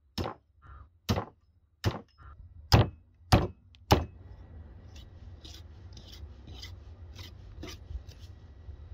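A hand axe chopping through a lamb carcass into a wooden chopping stump, six heavy strokes over about four seconds. Then a butcher's knife sawing along the lamb's rib bones, a run of softer rasping strokes, about two or three a second.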